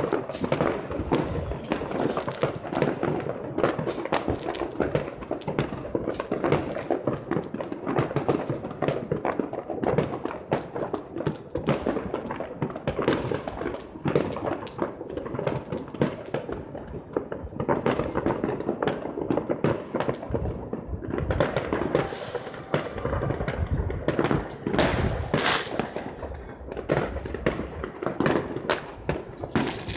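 Fireworks going off all at once, a dense, unbroken crackle of overlapping bangs and pops.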